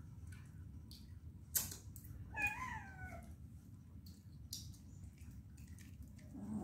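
A domestic cat meows once, a short call about two and a half seconds in that rises and then falls, just after a sharp click. Faint light ticks and taps sound on and off.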